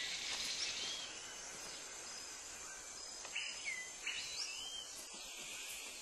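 Tropical forest ambience: a steady high hiss of insects, with several short, curving bird whistles, one about a second in and a cluster between three and four and a half seconds in.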